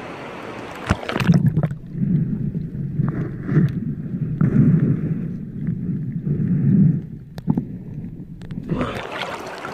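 River water sloshing at the surface, then muffled, pulsing underwater water noise with a few sharp knocks once the camera goes under about a second in, until it breaks the surface again near the end.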